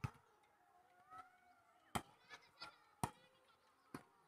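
Volleyball being hit by players' hands during a rally: four sharp slaps, one at the start and three more about a second apart from two seconds in, with faint shouts between them.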